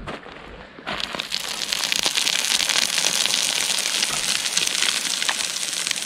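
Boots crunching and sliding down a slope of loose river gravel, pebbles rolling and grinding underfoot in a dense, continuous crackle that starts suddenly about a second in.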